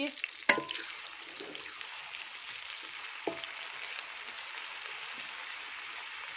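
Sliced onions sizzling steadily in hot oil, browning toward a light golden colour. They are stirred with a wooden spatula that knocks sharply against the metal pot about half a second in and more lightly a few seconds later.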